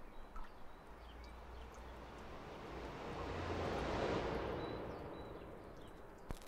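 Faint outdoor ambience with scattered bird chirps, and a rushing noise that swells to a peak about four seconds in and then fades away. A single sharp click near the end.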